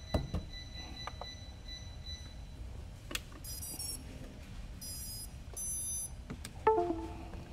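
Three short, high electronic beeps about three and a half, five and five and a half seconds in, among light handling clicks, with a louder knock near the end.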